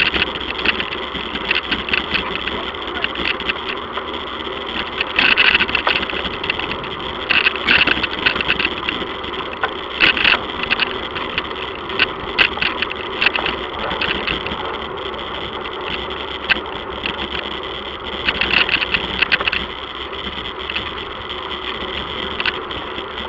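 Bicycle rolling along a paved promenade, picked up by the Rollei Racy HD+ action camera riding with it: a steady rolling noise with repeated bursts of rattling and clicking as the bike goes over the paving.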